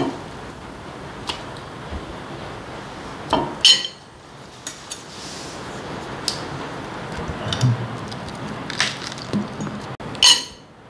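Serving tongs and a knife clinking and tapping against ceramic plates and a platter as food is served: a string of short, sharp clinks spaced a second or so apart, two of them louder.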